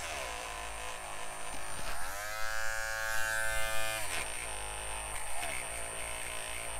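Cordless Dremel rotary tool spinning a soft felt buffing wheel with polish against a stripped die-cast car body. The steady motor whine falls near the start, rises about two seconds in, and drops again about four seconds in.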